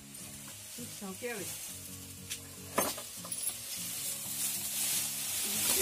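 Dry stored hay rustling and crackling as a hand handles it, with a sharp crackle near the middle and the rustling growing louder toward the end.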